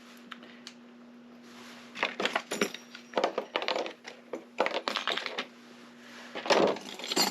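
Small metal lock parts clicking and clinking in clusters as a lock cylinder is handled and worked apart with its key inserted, over a faint steady hum.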